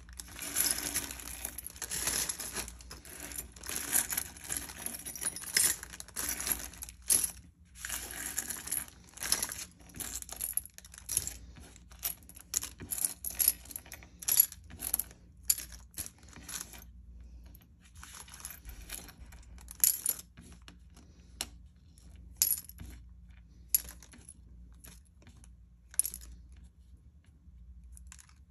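Loose pieces of costume jewelry clinking and jingling as they are gathered up and dropped into a bag: a busy run of small metallic clicks that thins out to scattered single clinks a little past halfway.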